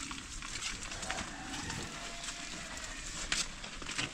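Footsteps on wet, muddy ground: a few scattered sharp steps over a steady outdoor hiss.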